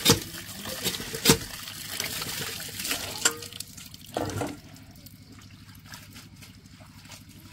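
Water splashing and trickling as boiled leafy greens are rinsed by hand under water, with a few sharp knocks in the first few seconds; it settles to a quieter trickle after about four and a half seconds.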